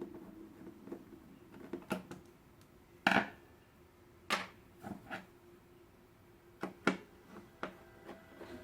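Irregular clicks and knocks of small hard parts being handled, about eight in all, the loudest about three seconds in.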